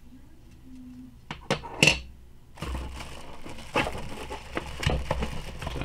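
A few light clicks and knocks, then plastic packaging crinkling and rustling from about halfway through as a hand rummages among the wrapped parts in a cardboard box.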